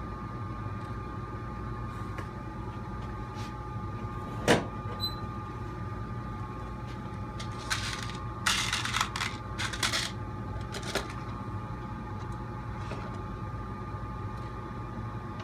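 Steady workshop hum, with a sharp click about four and a half seconds in. Around eight to ten seconds in comes a short spell of clattering and rustling as hands handle parts and hardware on the workbench, then one more click.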